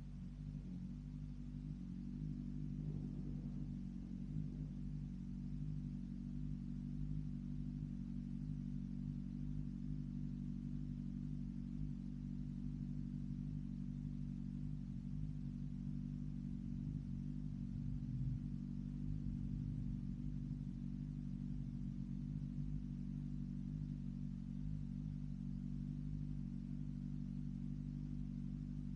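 BMW S1000RR inline-four with an M4 exhaust running at a steady cruise, heard as an even, muffled low drone that holds its pitch without revving up or down.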